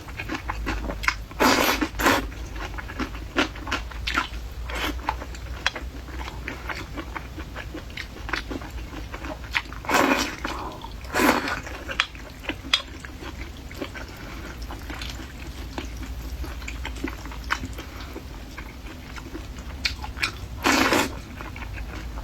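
Close-miked eating sounds: steady chewing with small wet mouth clicks. Louder short bursts of bites or slurps break in about a second and a half and two seconds in, twice around ten to eleven seconds, and once near the end.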